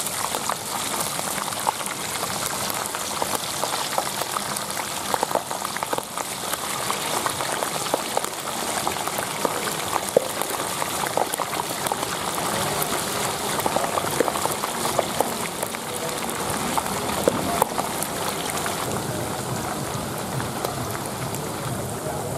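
Whole catfish deep-frying in a wok of hot cooking oil: steady sizzling with many small crackling pops scattered through it.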